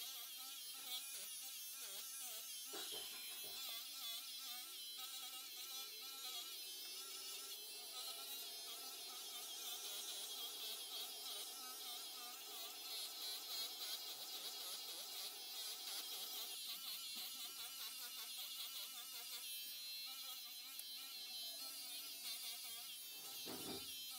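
Electric pet hair clipper buzzing steadily as it shaves through a cat's long, matted fur, its pitch wavering slightly as the blades work through the coat.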